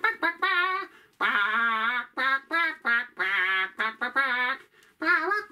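Imitated chicken squawking voiced for a chicken puppet: a run of long, wavering, high squawks with short breaks, going back to quick clucking near the end.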